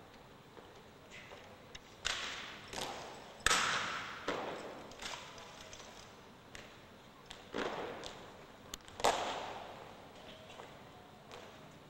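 Rifle drill: irregular sharp slaps and knocks of rifles being snapped into hands and struck, about nine in all, each ringing out in a large hall. The loudest strikes come about three and a half seconds in and again about nine seconds in.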